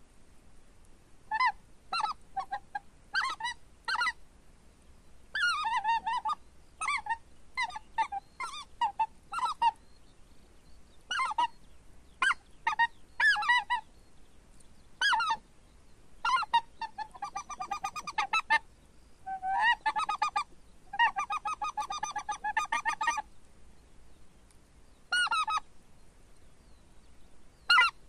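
Goose call blown by mouth, sounding groups of short goose honks with pauses between them, and two longer runs of fast chattering honks about two-thirds of the way through.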